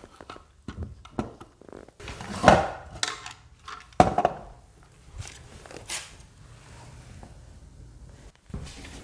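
Small hard objects handled on a table, the pieces of a taken-apart music box and small boxes: a run of clattering clicks and knocks, with two sharp louder knocks about two and a half and four seconds in, then only faint handling.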